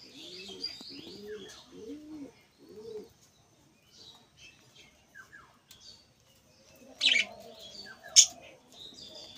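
Budgerigars chirping and chattering in high, quick notes, with two loud, shrill bursts about seven and eight seconds in. Under them in the first three seconds, a pigeon coos in a low, repeated rise-and-fall.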